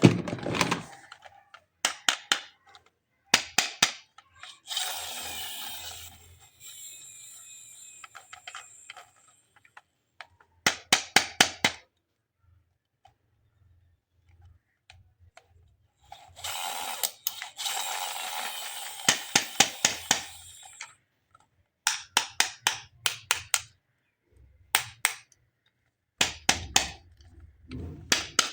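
Plastic toys being handled: quick runs of sharp clicks in small groups, with two longer stretches of rustling hiss lasting a few seconds each.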